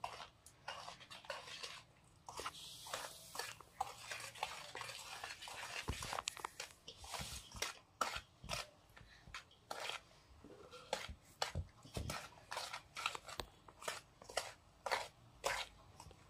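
Wire whisk stirring flour into cake batter in a steel bowl: quick, uneven strokes of the wires scraping and tapping against the metal.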